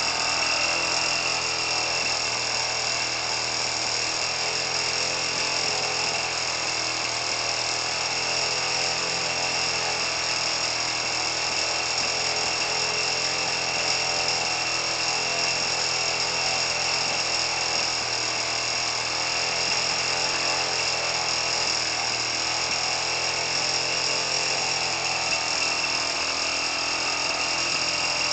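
Small two-stroke gas engine, fitted with a 50 cc chainsaw carburettor and muffler, running at a steady speed and turning an 18x12 model-airplane propeller. The builder says both the carburettor and the propeller are too big for this engine.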